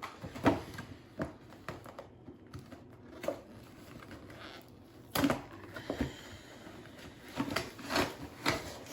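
Gift packaging being handled and opened: irregular rustling and crinkling with scattered light clicks and knocks, louder about half a second in and again about five seconds in.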